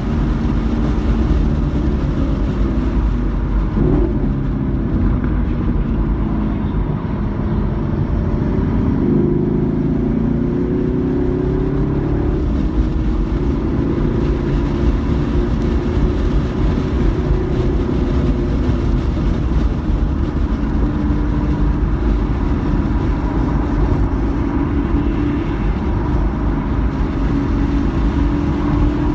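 Car engine under load heard from inside the cabin, with steady road and tyre noise beneath it. The engine note falls and climbs again a few times as the car slows and accelerates.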